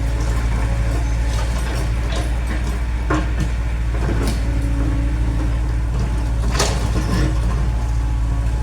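Excavator's diesel engine running steadily, with a few irregular knocks and clanks.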